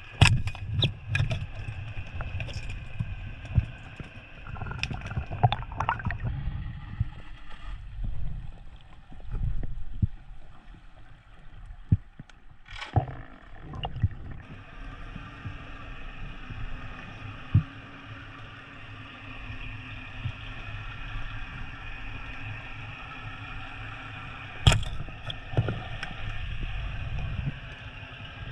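Underwater sound picked up through a camera's waterproof housing: a muffled low rumble and hiss of moving water, broken by a few sharp clicks and knocks, the sharpest near the end.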